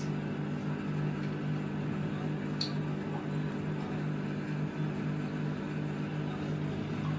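Steady electrical hum of a microwave oven running as it bakes a pizza, with a couple of faint clicks.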